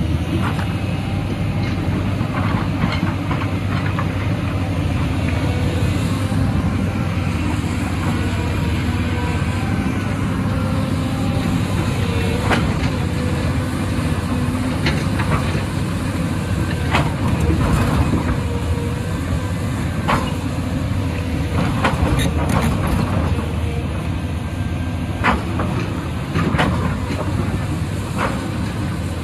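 Diesel engine of a Cat tracked hydraulic excavator running steadily under digging load, with scattered sharp clanks and knocks of the bucket striking rock and stones, more frequent in the second half.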